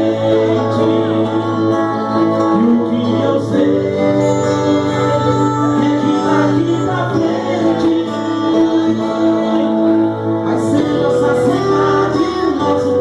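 Sertanejo pop song with steady band accompaniment of sustained chords and a low bass line, with some singing.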